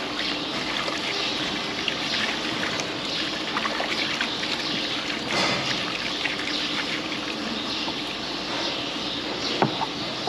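Water running and trickling in a cattle water trough that is draining with its plug out. A few sharp knocks come near the end.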